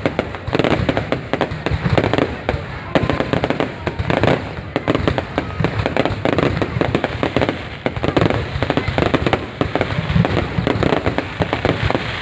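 Fireworks display with a dense, continuous run of bangs and crackles.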